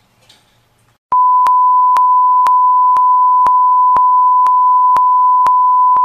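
Loud, steady single-pitch test tone of about 1 kHz, a broadcast test signal, starting about a second in, with faint clicks about twice a second through it.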